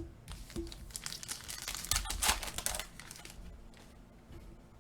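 A trading-card pack wrapper being torn open and crinkled: a run of crackles and rips, densest about two seconds in, then fainter rustling near the end.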